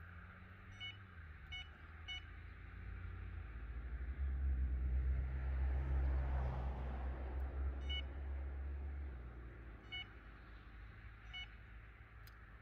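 Electronic bite alarms on a rod pod giving single short beeps, six in all, as the line is handled. A low vehicle rumble swells and fades in the middle, the loudest sound.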